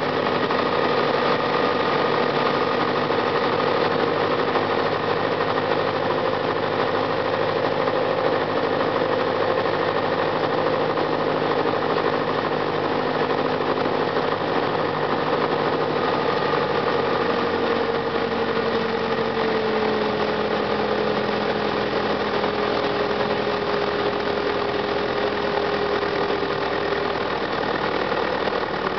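Piper Cherokee 140's four-cylinder Lycoming engine running at reduced power on final approach, heard from inside the cabin over a steady rush of air. Its pitch sinks a little about two-thirds of the way through.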